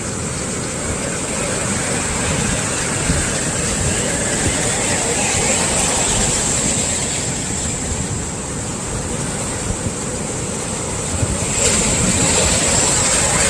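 Sea surf from heavy swell waves washing onto the shore, a steady rushing noise with a louder wave breaking near the end.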